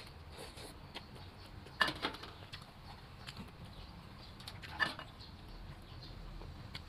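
A metal spoon clinking against the bowls twice, about two and five seconds in, with faint chewing between.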